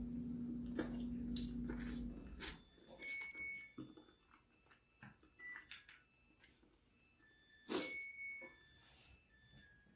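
Mouth sounds of eating spicy chicken feet by hand: scattered wet clicks, smacks and sucking on the bones, with a couple of short high squeaks and one loud sharp breath about three-quarters in. A steady low hum runs under the start and cuts off about two seconds in.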